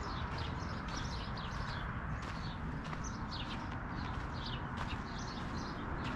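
Small birds chirping, a quick run of short falling chirps several times a second, over a steady low rumble.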